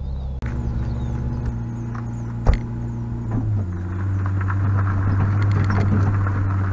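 Tow vehicle's engine running at low speed while backing a boat trailer across gravel toward a launch ramp. There is a single sharp knock about two and a half seconds in. About a second later the engine note drops and gets louder as the vehicle moves off, and a rough gravelly noise builds under it.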